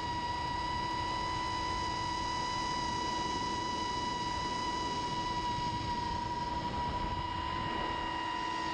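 FPV quadcopter's brushless motors whining at a steady, near-constant pitch in cruise, with wind hiss.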